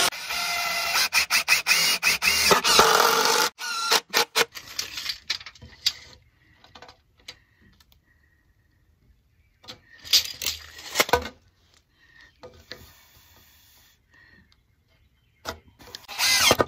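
Porter-Cable cordless impact driver driving a decking screw into a 2x4 frame for about three and a half seconds, its pitch rising partway through. Scattered clicks and knocks of handling follow, and the driver starts up again near the end.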